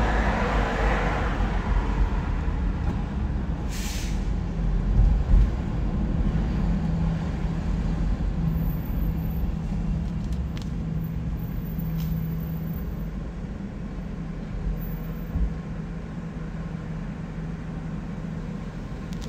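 Road and engine noise heard from inside a car driving in city traffic, easing off as the car slows to a stop. A short hiss cuts through about four seconds in.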